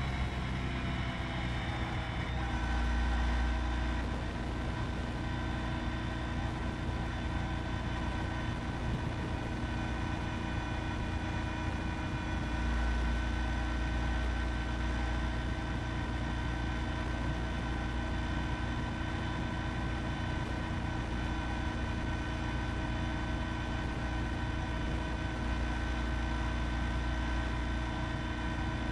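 Honda ST1300 Pan European's V4 engine at motorway speed, with wind rumble. The engine's pitch falls over the first two seconds as the bike eases off, then holds steady at a cruise.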